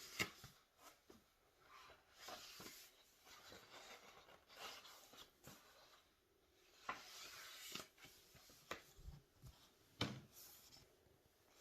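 Faint rustling and light taps of a picture book's pages being handled and turned.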